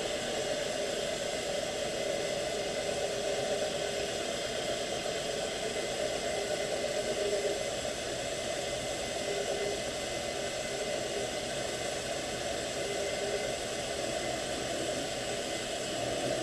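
South Bend drill press running steadily, its long 1/8-inch bit feeding into aluminum on a deep-drilling peck.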